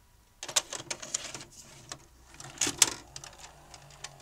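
Video cassette recorder mechanism clicking and clunking as a tape is loaded to play, with a small motor whirring on and off. The loudest is a sharp click a little under three seconds in.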